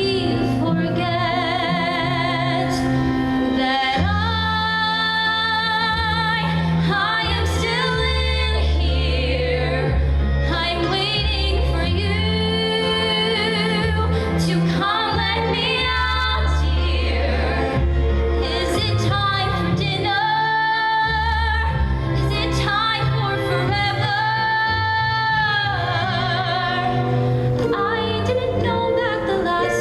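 Musical-theatre duet ballad: a female voice sings long held notes with wide vibrato over instrumental accompaniment.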